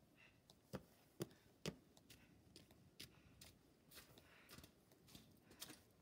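Near silence broken by faint, irregular light clicks and ticks, with three sharper clicks about a second in.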